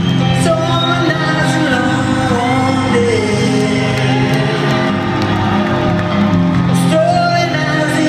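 A man singing a slow song live over electric guitar chords, heard from the audience in an arena, with faint crowd noise.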